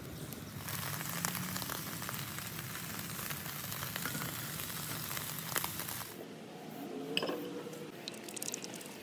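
Steak sizzling over an open fire, a steady hiss with small crackling pops. It falls away about six seconds in.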